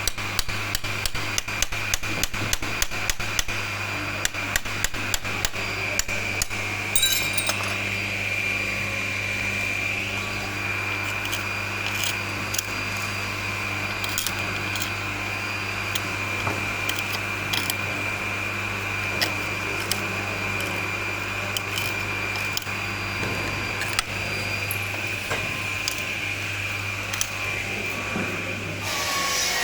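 Rapid sharp taps, about five a second, that thin out to occasional clicks after about six seconds, over a steady electric hum and a high whine. The hum cuts off near the end.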